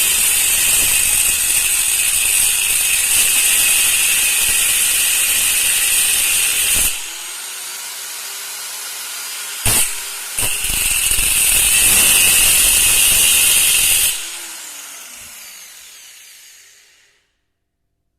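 A power tool working metal runs loud in two long spells. Between them is a quieter stretch with a sharp clack, and after the second spell it dies away.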